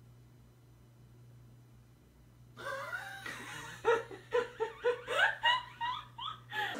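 A person laughing in repeated short bursts, beginning about two and a half seconds in after a quiet stretch with a faint low hum.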